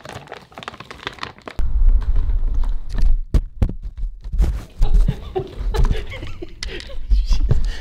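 Handling noise from a camera being picked up and moved about: heavy low rumbling on its microphone, with many knocks and clicks. It starts about a second and a half in.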